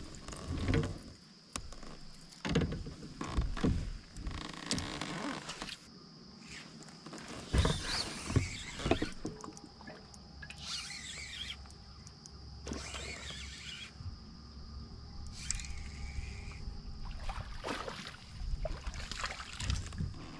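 Irregular knocks, clicks and rustling from gear being handled on a fishing kayak.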